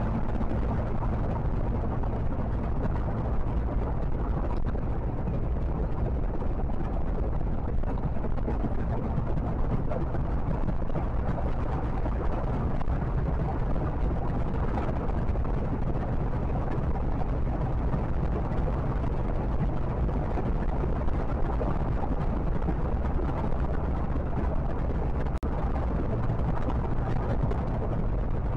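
Steady low rumble of wind and tyre noise from a vehicle cruising at highway speed, with a constant low engine hum underneath, picked up by a dashcam's microphone.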